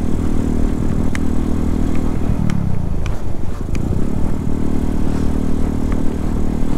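Motorcycle engine running on the road. Its pitch falls about two seconds in as it slows, climbs again about four seconds in, and drops once more near the end, with a few light clicks.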